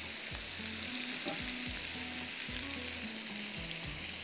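Meat pieces sizzling as they fry in hot oil, a steady spattering hiss.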